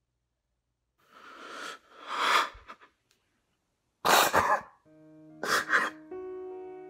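A man sobbing: a few ragged, breathy crying gasps, then a loud sob about four seconds in. Background music with held notes comes in about a second later, under further sobs.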